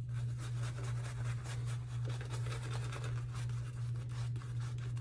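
Shaving brush with a grey wolf knot scrubbing warm shave-soap lather over the face in quick, repeated scratchy strokes, over a steady low hum.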